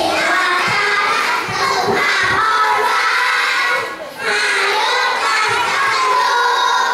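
A group of young children singing loudly together in unison into microphones, with a short break about four seconds in.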